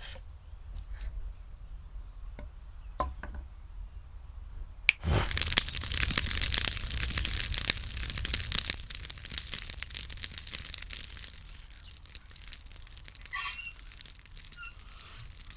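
A few light wooden knocks as small sticks are set down. About five seconds in, a campfire catches suddenly and crackles and pops densely, loudest at first and easing off after a few seconds.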